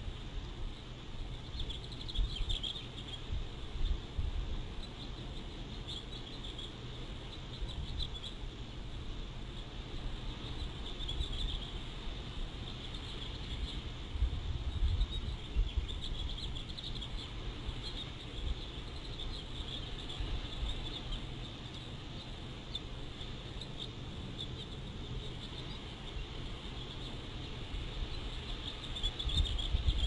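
Wind gusting on an outdoor nest-cam microphone, a low rumble that swells a few times. Faint brief high-pitched chirps come and go over a thin steady high hiss.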